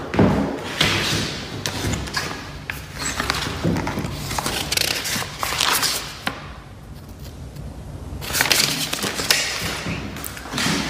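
Handling noise of a phone held close to its microphone: irregular thumps, knocks and rubbing as it is picked up and moved, with a quieter stretch in the middle.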